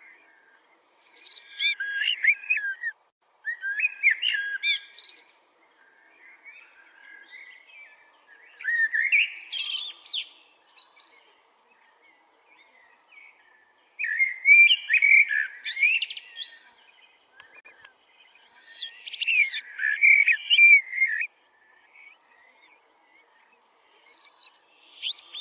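Koel singing: loud song phrases of about two seconds, repeated every four to six seconds, with fainter calls in between.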